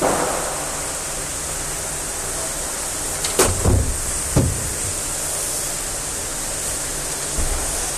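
Handheld shower head spraying a jet of water onto the floor of a shower cubicle, a steady hiss. A few dull knocks come about halfway through.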